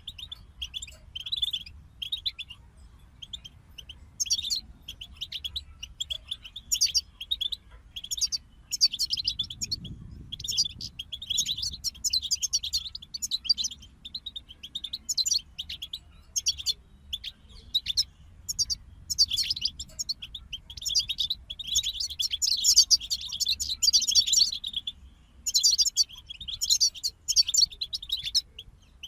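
European goldfinches singing: fast, liquid twittering phrases in bursts with short pauses between them, busiest in the second half.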